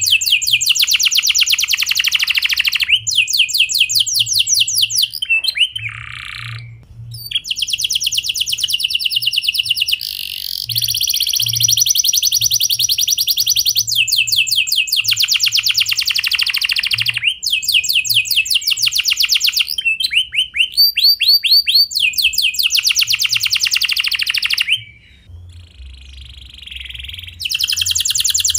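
Domestic canary singing a clear song of long, fast rolling trills, phrase after phrase. There are brief pauses about six seconds in and again near the end.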